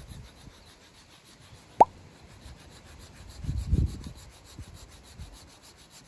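A sliver of deer antler being rubbed back and forth on a wet grinding stone, a faint steady scraping as it is ground thin into a needle. About two seconds in there is one short, loud plop that sweeps up in pitch.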